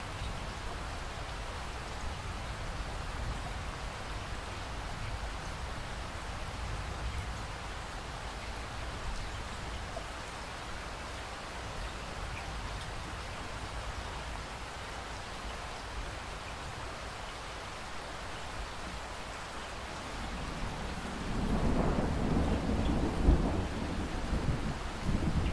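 Steady rainfall, with a low rumble of thunder building up near the end and still going.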